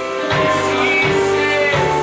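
Live ensemble music: held chords of voices and instruments, changing chord about a third of a second in and again near the end.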